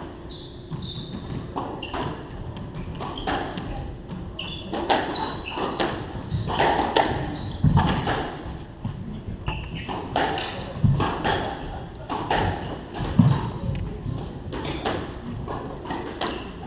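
A squash rally: the ball struck by rackets and thudding against the walls, with short rubber-sole squeaks and footsteps on the wooden court floor, echoing in the enclosed court.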